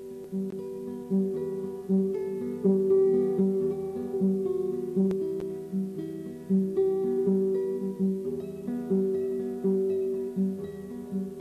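Background music: an acoustic guitar picking notes in a steady rhythm, about two a second.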